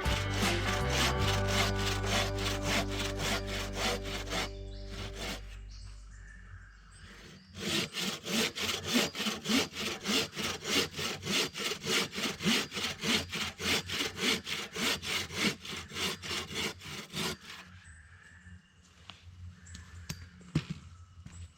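Hand saw cutting through a log in fast, even back-and-forth strokes, with background music fading out. After a short pause about six seconds in, a longer run of louder, slightly slower strokes follows and stops about 17 seconds in.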